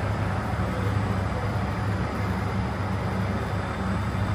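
Steady low hum of a running motor over constant background noise.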